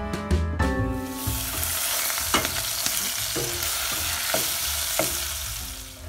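Onions and ginger-garlic paste sizzling loudly in hot oil in a stainless steel pot, stirred with a wooden spoon that knocks against the pot four or five times. Background music plays for about the first second before the sizzle comes in.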